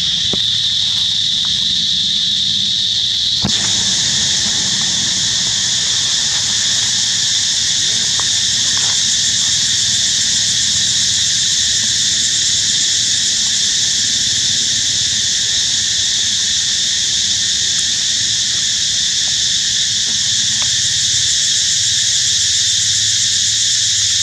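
A loud, steady chorus of insects droning high in pitch, with a higher layer joining in about three and a half seconds in.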